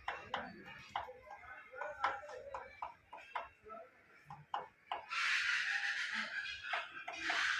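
Woodpecker pecking at wood while foraging, an irregular run of sharp taps. From about five seconds in, a loud hissing rustle joins the taps.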